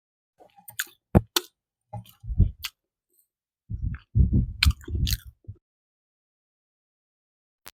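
A person chewing a mouthful of food with sharp mouth clicks and wet chewing bursts. The chewing stops a little past halfway, with one more click near the end.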